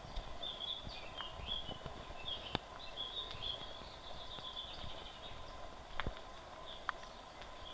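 Footsteps on a dirt forest path, heard as scattered knocks, while small birds chirp and twitter, most busily in the first half.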